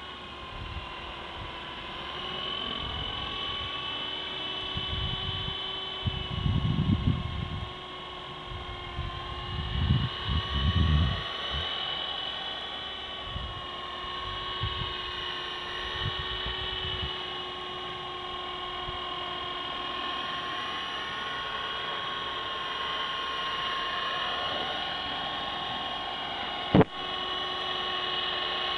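Electric motor and single rotor of an FX052 4-channel RC helicopter whining steadily, the pitch wavering slightly as the throttle changes. Irregular low rumbles come and go around the middle, and there is one sharp click near the end.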